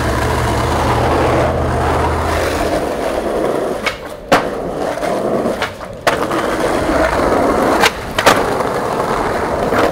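Skateboard wheels rolling steadily over street pavement, with a low rumble for the first couple of seconds. Several sharp clacks of the board against the ground come in the second half, about four of them.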